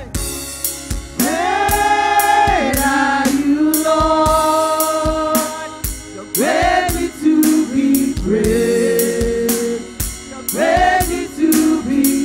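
A women's gospel worship group singing into microphones, holding long notes in harmony with slides between them, over a steady drum-kit beat.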